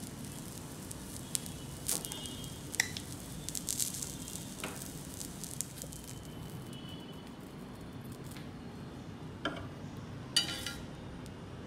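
Bread omelette sizzling faintly on a black iron tawa, with scattered scrapes and taps of a steel spatula cutting it against the pan, and a sharper clink about ten seconds in.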